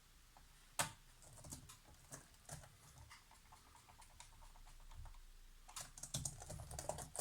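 Scattered small clicks and taps from a Dell Latitude E5420 laptop's parts being handled during reassembly: one sharp click about a second in, then lighter taps, coming thicker near the end.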